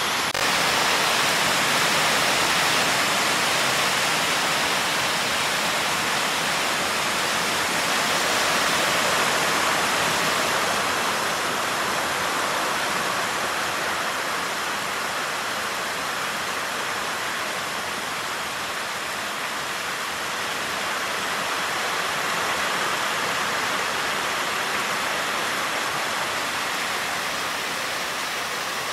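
Heavy downpour: a steady hiss of rain pouring down and falling on the corrugated sheet roof overhead.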